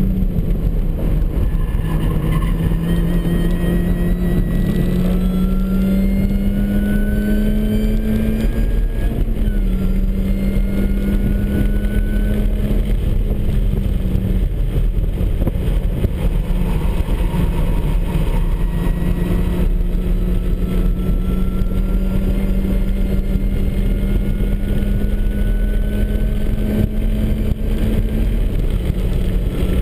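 Supercharged MINI Cooper S four-cylinder engine pulling hard under load, with a steady rush of tyre and wind noise underneath. Its pitch climbs slowly and drops sharply at gear changes, about 8 seconds in, at about 14 seconds and near the end. A fainter higher whine rises along with the engine note.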